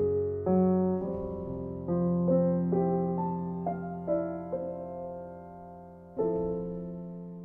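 Background piano music: notes and chords struck and left to fade, a new one about every second.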